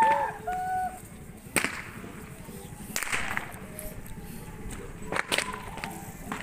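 Long rope whips swung by carnival dancers cracking: four sharp cracks spread out, the last two in quick succession.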